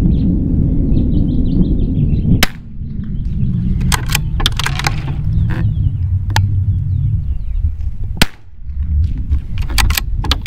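Wind rumbling steadily on the microphone, broken by sharp cracks of .22 LR rifle shots from a CZ 455 Varmint firing Eley Force high-velocity rounds. The loudest cracks come about two and a half seconds in and just after eight seconds, with smaller clicks between. Birds chirp faintly near the start.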